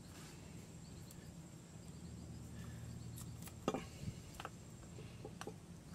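Several faint clicks and soft knocks in the second half, the strongest about two-thirds of the way through, as a greased brake caliper slide pin and its bracket are handled on a rag, over a low steady hum.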